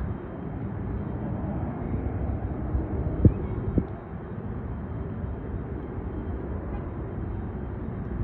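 Distant business jet's engines rumbling low and steady as it climbs away after takeoff, with two brief knocks a little over three seconds in.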